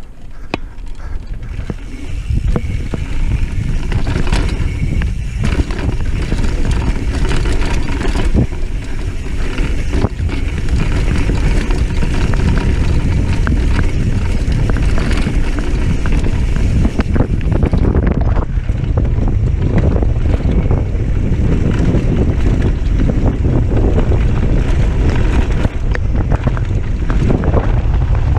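Wind rushing over the camera microphone as a mountain bike rolls fast down a dirt trail, with tyre noise and occasional knocks and rattles from the bike over bumps. The rush builds about two seconds in as the bike picks up speed.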